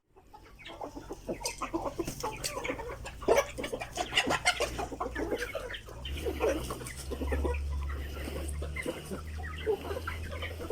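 A flock of Philippine native chickens (Manok Bisaya) clucking, with many short, overlapping calls. A low hum joins underneath about halfway through.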